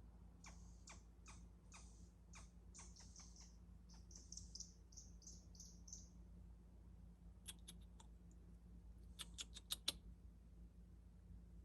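Faint calls of an unidentified wild animal: a run of quick, sharp chirps about two a second, then a few higher, steadier notes, then a tight cluster of fast clicks near the end.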